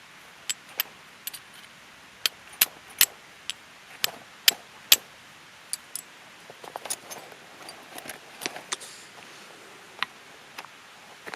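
Irregular sharp clicks and light clinks, like small gear or metal items being handled, with some softer rustling handling noise in the second half, over a faint steady hiss of a stream.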